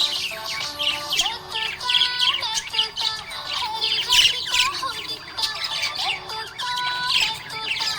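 Budgerigars chirping and squawking rapidly and continuously over background music with held notes.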